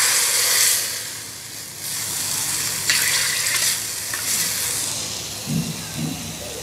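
Hot oil with fried cumin seeds (a jeera tadka) being poured from a bowl onto kadhi and sizzling. A loud hiss fades within the first second, followed by shorter bursts of sizzle about two, three and four seconds in as the last of the oil goes in.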